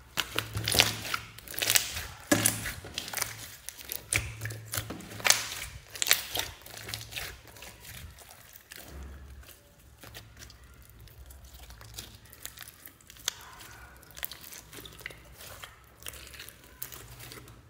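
Hands squeezing and kneading a large lump of glitter slime mixed with beads and sequins, making a run of sharp crackling pops. The pops are loudest and thickest in the first six seconds or so, then give way to quieter, sparser crackling.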